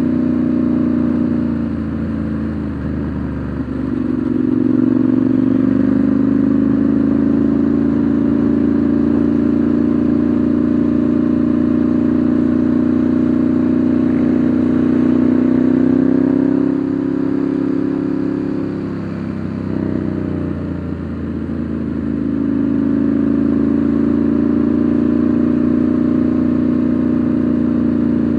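Ducati Monster 1100's air-cooled L-twin engine running at cruising speed on the road, heard from the rider's seat. It eases off briefly about three seconds in and again for a few seconds in the middle, then pulls again.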